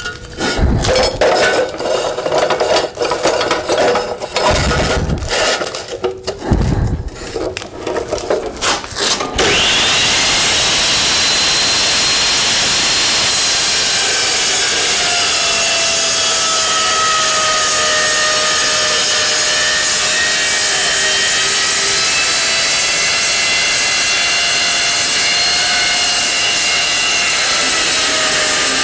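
Steel pieces clanking and knocking at an Evolution Rage 2 metal-cutting saw for the first nine seconds or so. The saw then starts with a rising whine and runs steadily, its blade cutting through steel with a continuous hiss and a drifting whine.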